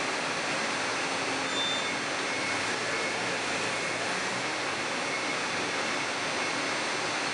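Toyota 8FGV25 LP-gas forklift running steadily as it drives and turns, an even hiss-like machine sound with no change in level.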